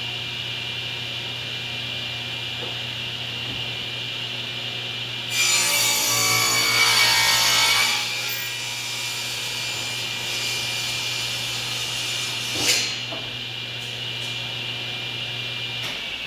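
Table saw running with a steady whine, cutting through a wooden board for about three seconds midway. A single knock follows later, and near the end the saw is switched off, its whine falling as the blade spins down.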